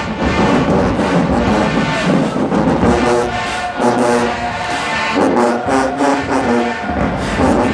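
HBCU marching band playing loudly: brass horns on sustained, shifting chords over steady drum hits.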